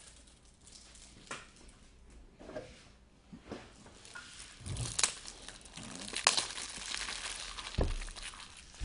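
Plastic packaging crinkling and rustling as it is handled and torn open, starting about halfway in, with a few sharp clicks among it; a few light taps and handling noises before that.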